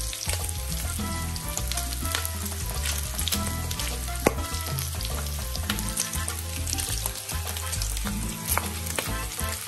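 Strips of bacon sizzling and crackling in a ridged grill pan, with many small pops of spitting fat and one sharper pop about four seconds in.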